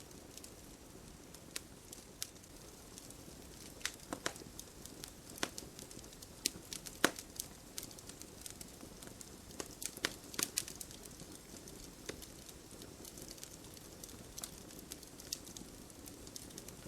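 Wood campfire burning, with irregular sharp crackles and pops over a low steady hiss of flames. One pop stands out about seven seconds in, and a cluster of pops comes around ten seconds.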